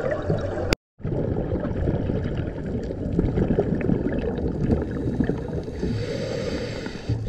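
Underwater sound through an action camera's waterproof housing: a steady, muffled water rumble with fine crackling and the gurgle of scuba exhaust bubbles. The sound drops out completely for a moment just under a second in.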